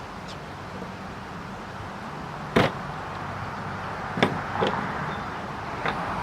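Sharp clicks and knocks from a knife cutting through a rubber expansion plug on a work surface. The loudest comes about two and a half seconds in, with three lighter ones in the second half, over a steady low hum.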